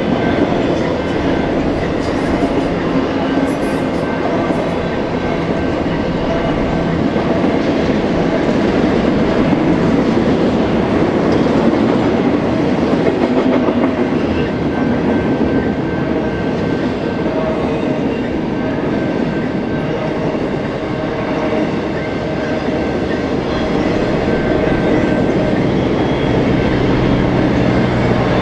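Double-stack intermodal freight train's container well cars rolling past close by: a steady, unbroken rumble of steel wheels on rail.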